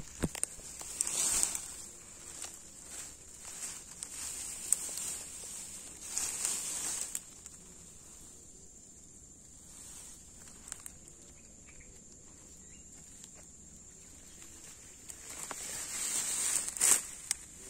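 Fern fronds and undergrowth rustling and swishing as someone pushes through on foot, in bursts about a second in, around six seconds in and near the end, with a quieter stretch between. Underneath, insects drone steadily at a high pitch.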